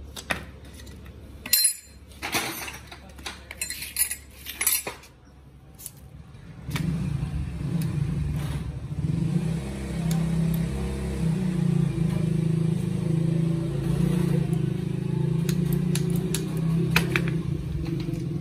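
Metal clinks and clanks of a motorcycle rear shock absorber being taken apart by hand, its spring and end fittings knocking together. About seven seconds in, a steady engine hum starts and carries on.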